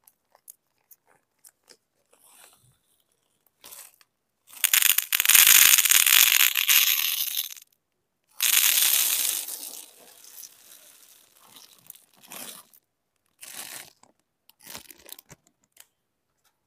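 Seed beads poured from a plastic bag into a compartment of a plastic bead organiser box: a dense rattling hiss in two long spells, one about four and a half seconds in and one about eight seconds in. Small clicks and rustles come between them.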